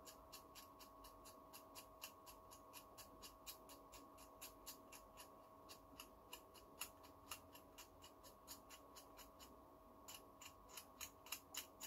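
Faint, quick scratching strokes, about three or four a second: a blade scraping hardened UV-cured mask off a phone circuit board to bare the newly drawn traces.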